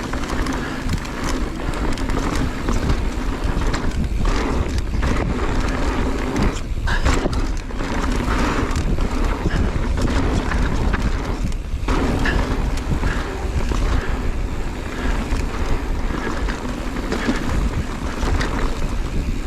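Mountain bike descending a rocky trail at speed: wind buffeting the microphone, tyres rumbling over rock and dirt, and a constant scatter of knocks and rattles from the bike.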